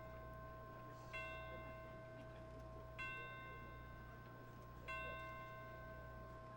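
A soft bell-like chime struck three times, about two seconds apart, each note ringing on steadily into the next, in a quiet passage of marching band music.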